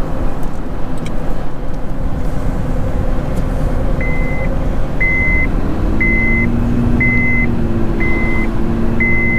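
A moving car's steady road and engine noise. About four seconds in, a high electronic beep starts sounding about once a second, six times in all.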